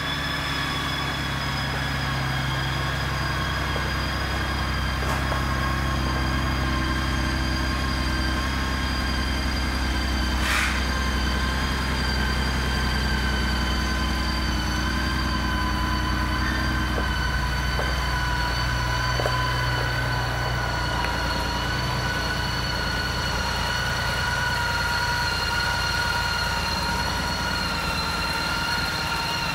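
Honda Goldwing GL1800's flat-six engine idling steadily: an even low hum with a thin whine above it that drifts slowly lower in pitch.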